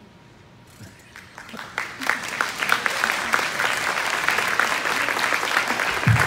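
Audience applause that starts about a second in and swells within a second to steady, full clapping. Near the end there is a short low bump on the microphone as it is set down on the stage floor.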